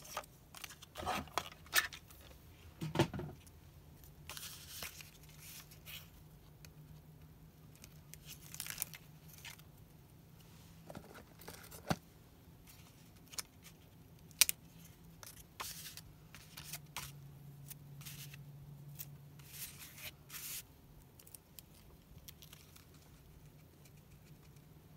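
Paper scraps and double-sided tape being handled: quick peeling, tearing and crinkling sounds, busiest in the first three seconds, then scattered light clicks and rustles of paper.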